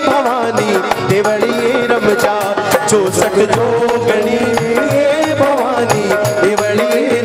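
Rajasthani devotional bhajan music played live: a hand-played dholak keeps a steady beat under a wavering, ornamented melody line, with a sustained harmonium.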